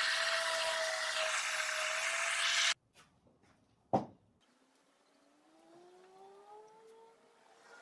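Electric power tool running with a steady whine over loud noise, cutting off abruptly about a third of the way in. A single click follows, then a faint, slowly rising whine.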